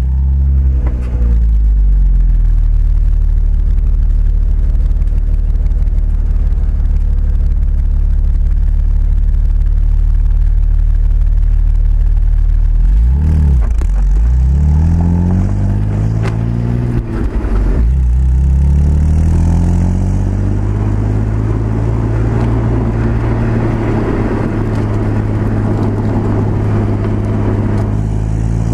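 Audi A4 3.0 V6 on its stock exhaust, miked right at the tailpipe: the revs settle from the start-up flare into a steady idle. About 13 seconds in the car pulls away, revving up and dropping back through two gear changes, then cruises with more road and wind noise, picking up again near the end.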